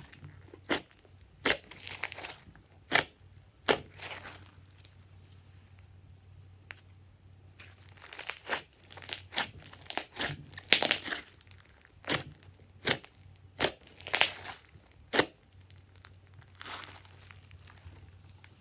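Hands kneading, stretching and squeezing glossy slime: wet squelches and sharp pops as air pockets in the slime burst, coming irregularly. They are sparse a few seconds in and come thick and fast in the middle.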